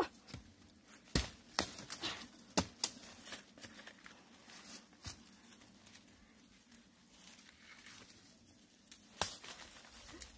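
A wooden digging stick jabbing and prying into the soil at the base of a bamboo clump to dig out a bamboo shoot, among crackling dry bamboo leaves. Several sharp knocks in the first three seconds, quieter scraping and rustling after that, and another sharp knock about nine seconds in.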